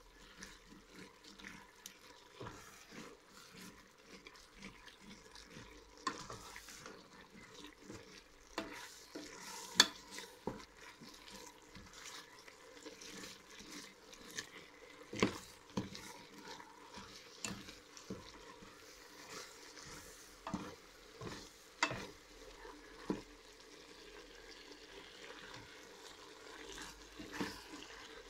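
Wooden spoon stirring cuttlefish and spinach sautéing in a stainless steel pot over a faint sizzle, with irregular knocks of the spoon against the pot, the loudest about ten seconds in.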